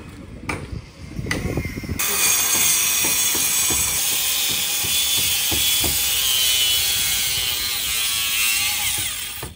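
A few hammer knocks, then about two seconds in a power tool starts suddenly and runs loud and steady with a high whine, working on wood during fishing-boat repairs, until it stops near the end.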